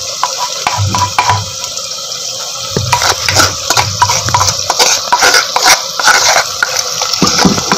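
Freshly added tomato and green-chilli paste frying in hot oil in a clay handi: a steady sizzling and bubbling, with many small crackles and pops.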